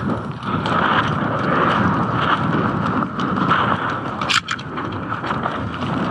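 Footsteps on a dirt path and the rustle of clothing and gear as a player moves, over steady wind noise on the microphone, with one sharp snap about four seconds in.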